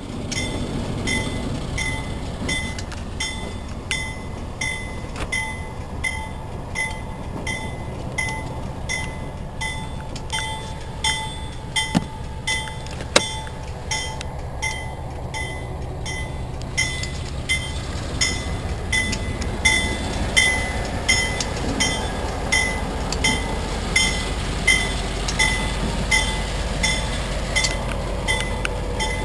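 Diesel switcher locomotive running with a low rumble while a bell rings steadily, about one and a half strokes a second.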